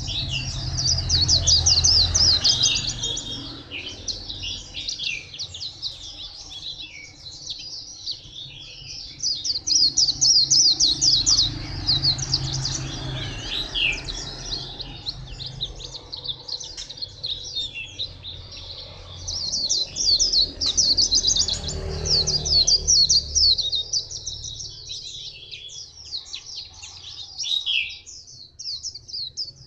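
Caged white-eye singing: fast, high twittering phrases in several long bursts with short, quieter pauses between them.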